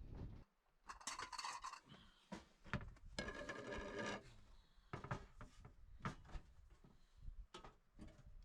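Faint knocks, clicks and scraping as camp cooking gear is moved and handled, with a short rubbing scrape about a second in and a longer rattling scrape from about three to four seconds in.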